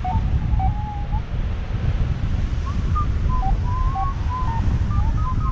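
Wind rushing over the microphone in flight, with a paragliding variometer beeping in short tones that step up and down in pitch as the climb rate changes. The beeps come in clusters: at the start, in the middle and near the end.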